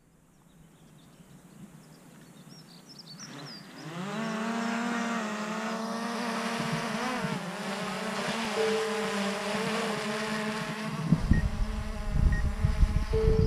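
DJI Mavic Air 2 quadcopter's propellers spinning up into a buzzing whine that climbs in pitch about four seconds in, then holds steady. A gusty low rumble joins near the end.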